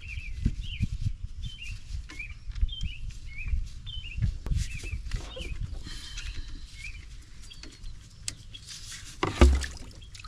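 A bird chirping over and over, short high notes about twice a second, while tools and a hose are handled under the Jeep's hood with low bumps and knocks. A louder clunk comes near the end as a coolant hose comes off the thermostat housing.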